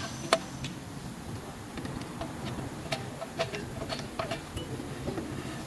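Screwdriver turning the parking-brake shoe adjuster wheel through the access hole in a rear brake disc, its teeth clicking irregularly, about one click every half second, as the parking-brake shoes are set against the drum.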